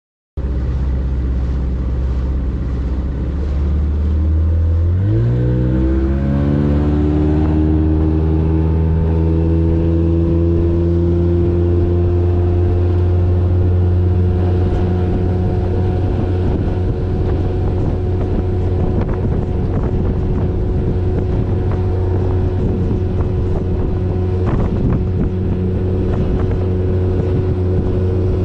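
Bass boat's outboard motor running, throttled up a few seconds in so its pitch rises over about three seconds, then holding steady at speed.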